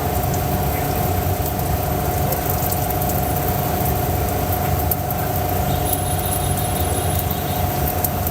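A machine running steadily: a low, even hum with a constant high whine over it, like an idling engine or a small motor.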